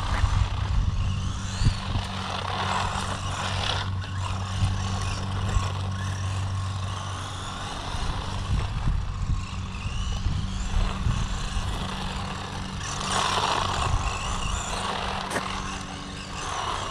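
Brushed-motor 1/16-scale electric RC truck on a 3S LiPo driving on asphalt, its motor and tyres whirring in surges that swell and fade, over a steady low hum.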